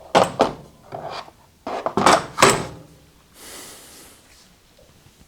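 Plastic toolbox organizer trays clattering and knocking as they are shifted around in a toolbox drawer, several knocks in the first couple of seconds, then a short sliding scrape.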